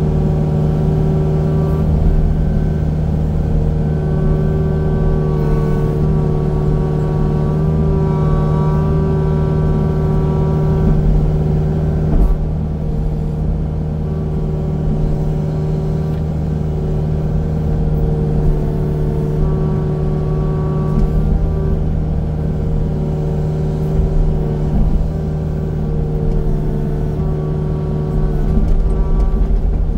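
Engine of a land-clearing machine running steadily under load, with higher tones that come and go.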